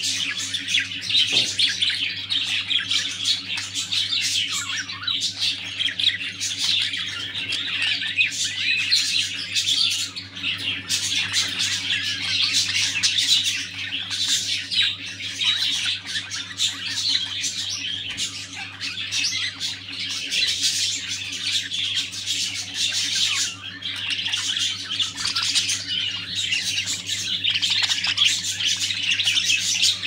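Mauve clearwing budgerigars chattering and warbling without pause, with squawks and chirps mixed in. A steady low hum runs underneath.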